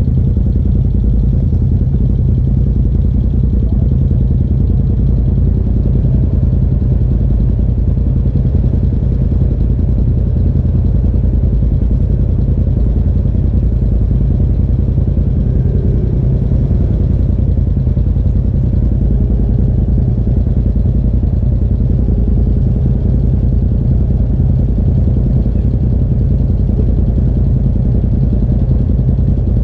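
Side-by-side UTV engine idling steadily close by, a constant low rumble with no revving.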